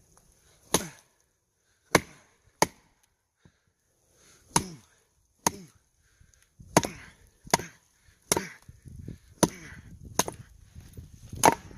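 A wooden baton striking the spine of a fixed-blade knife, driving it through a knotty pine log: about eleven sharp knocks at irregular intervals, the loudest near the end.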